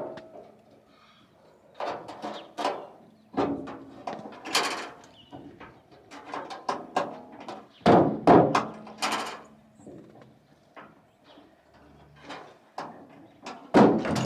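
Repeated metal clunks, bangs and latch clicks from a 1998 GMC K3500 pickup's tailgate being worked open and shut; the tailgate's latch hardware has been giving trouble. The knocks come in irregular clusters all through.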